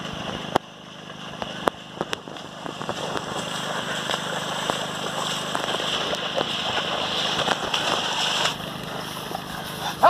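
Ongole bulls and their plough splashing through the mud and water of a flooded paddy field, over a steady low hum. A few sharp clicks come in the first two seconds, and the splashing grows louder from about three seconds in until it drops off suddenly near the end.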